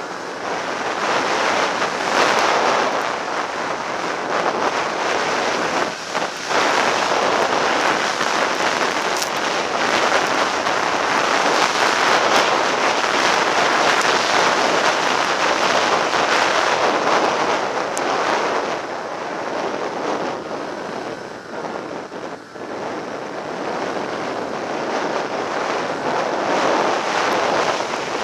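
Steady rush of wind noise on the microphone of a snowmobile riding at speed through loose snow, with the Arctic Cat M8's two-stroke engine running underneath. Brief dips in loudness come about six seconds in and again about twenty-two seconds in.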